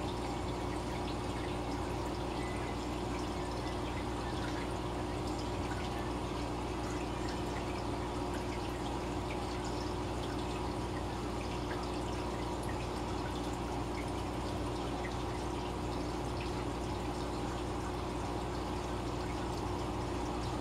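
Aquarium aeration bubbling steadily: streams of air bubbles from a sponge filter's uplift tube and air lines breaking at the water surface with a fine crackle and trickle. A steady low hum runs underneath.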